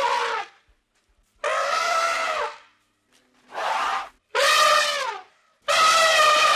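An animal crying out over and over: five hoarse, drawn-out calls, each about a second long, with short gaps between them.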